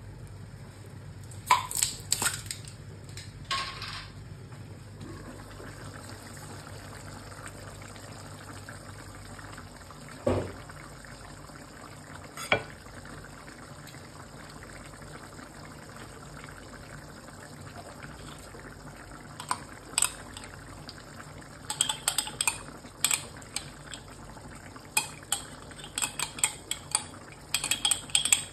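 Beef rendang simmering in a wok, with knocks and clinks of cookware: a few knocks in the first half as the glass lid is handled, then quick runs of metal clinks and scrapes in the second half. A low hum stops about ten seconds in.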